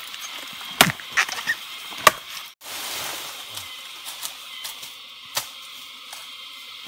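A blade chopping into a plant stalk, two sharp strikes about a second apart, then a few faint taps over a steady high hum.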